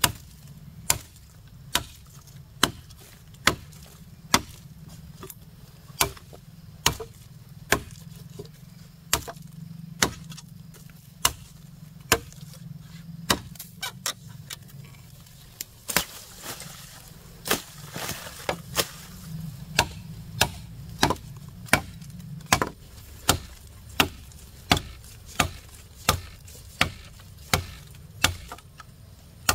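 Wood being chopped with a blade: sharp, evenly spaced strikes a little faster than one a second, with a few seconds of rustling noise midway.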